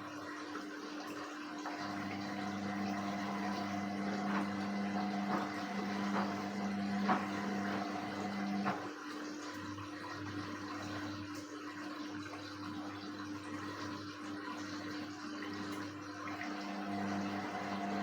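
Indesit WISN 101 washing machine on its rinse cycle: water running and swishing in the machine with a steady hum underneath. A stronger motor hum comes on about two seconds in, stops about nine seconds in, and starts again near the end, as the drum turns in spells.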